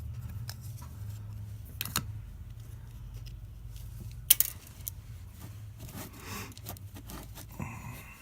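Keys and small parts being handled: scattered clicks and rattles, with one sharp click about four seconds in, over a low steady hum.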